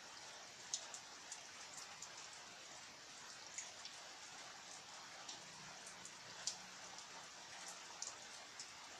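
Steady rain hissing, with single drops tapping sharply on a surface at irregular moments, two of them louder than the rest.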